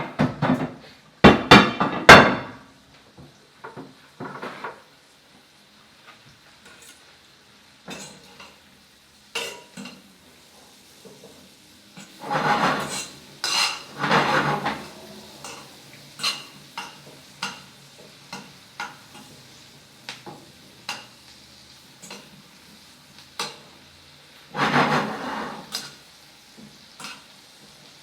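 Pots, pans and metal utensils clattering and knocking in bursts, with many short knocks in between, over a faint sizzle of hot oil in a frying pan.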